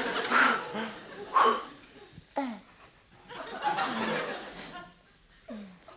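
Theatre audience laughing, in a couple of waves that die away near the end.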